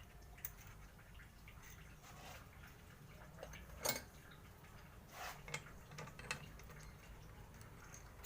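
A few scattered light clicks and clinks, with the sharpest one about four seconds in and a small cluster a second or two later, over a faint low hum.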